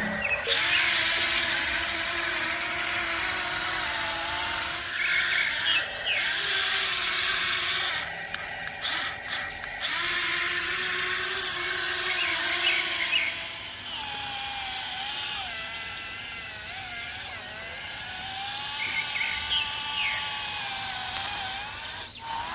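Small electric motors of radio-controlled construction models whining and grinding, their pitch wavering as they speed up and slow down, with a few brief stops.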